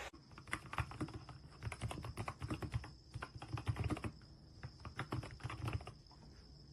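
Fast typing on a Keychron K2 HE Pro keyboard with Hall Effect magnetic switches: a dense, irregular clatter of key presses with a deep low thud under each click, easing briefly twice.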